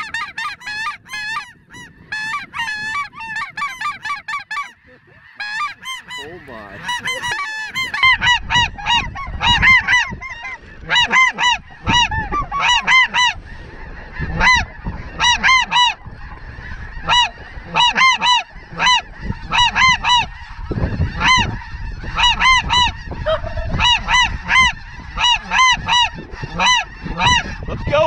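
Flock of snow geese calling: a continuous chorus of honks, several overlapping each second, growing denser and louder about eight seconds in, with wind rumbling on the microphone.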